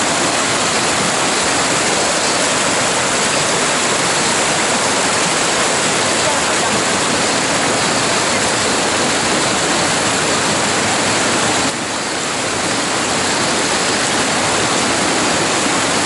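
Rushing mountain stream, water tumbling over rocks in small cascades, swollen with high water. A loud, steady rush that dips slightly about twelve seconds in.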